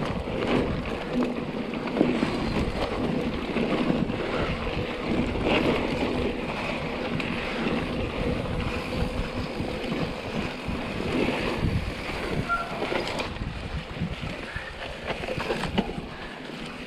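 Mountain bike rolling along a sandy dirt track: a steady rush of tyre noise and wind over the microphone, with a few knocks as the bike jolts over bumps.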